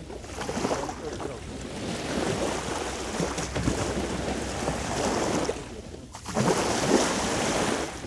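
Waves washing on the shore, with wind buffeting the microphone; the noise drops briefly about six seconds in and then comes back.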